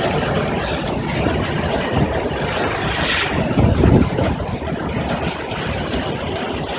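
Coal-fired steamship TSS Earnslaw under way: steady rushing of churning wake water along the hull over a low machinery rumble, with a louder low surge around three and a half to four seconds in.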